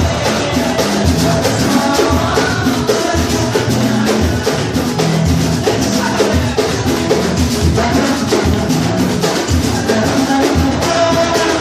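Batucada percussion ensemble playing live, many drums struck together in a dense, steady beat.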